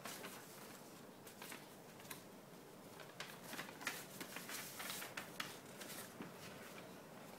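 Faint rustling and crackling of printed paper sheets being turned and folded by a toddler's hands, in short irregular crinkles that grow busier about halfway through.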